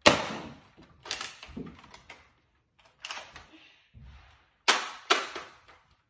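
Nerf Rival Roundhouse XX-1500 blaster firing, with a sharp pop right at the start. More plastic clacks and knocks follow, including two sharp ones about half a second apart near the end.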